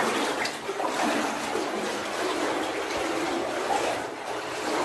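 Water splashing and trickling inside a flooded mine tunnel: a steady, uneven wash of water noise.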